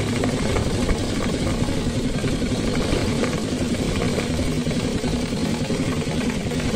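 Black straight-stitch sewing machine running steadily at speed, its needle and feed mechanism clattering as it stitches a seam through fabric.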